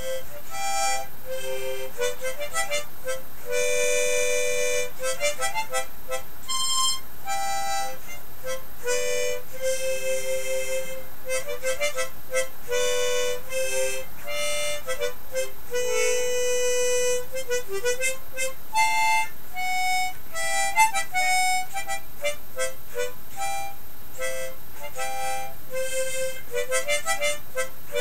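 Harmonica played solo: a melody of quick short notes with a few longer held notes.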